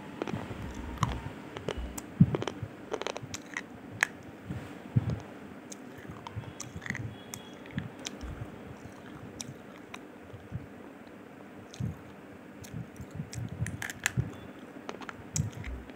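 Two slate pencils being bitten together and chewed: sharp snaps and crunches, loudest in the first few seconds, with quieter crunching in between and another run of snaps near the end.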